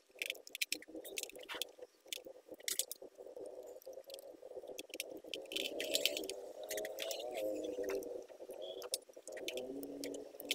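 Small screwdriver turning out the bottom-case screws of an HP 2000 laptop: scattered light clicks and scraping of the tip in the screw heads, with taps on the plastic case.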